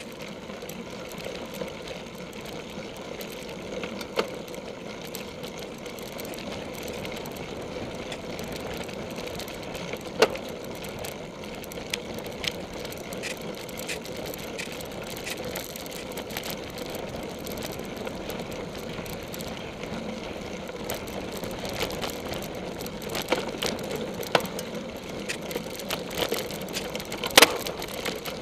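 Steady rattle and rumble of a cyclocross bike ridden fast over grass and dirt, heard close through a camera mounted on the bike, with occasional sharp knocks from bumps, the loudest about ten seconds in and near the end.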